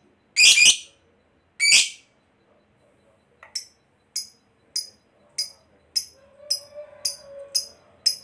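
Fischer's lovebird calling: two loud harsh screeches in the first two seconds, then a regular run of short, sharp, high chirps, about one every 0.6 s.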